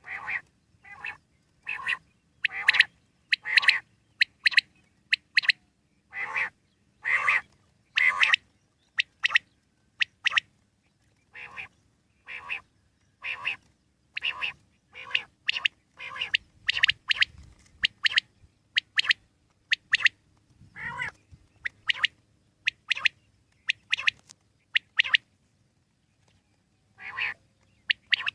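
Common quail calling: short sharp calls repeated about twice a second, with a brief pause near the end.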